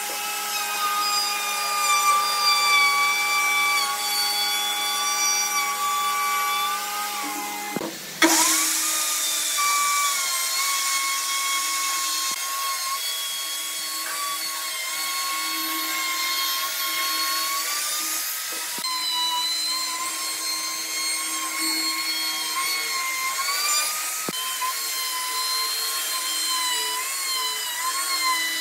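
Electric plunge router running at high speed while its bit cuts a profile along the edges of a wooden door frame. It is a steady high whine that wavers slightly in pitch as the bit cuts. There is one short break about eight seconds in, after which the whine carries on.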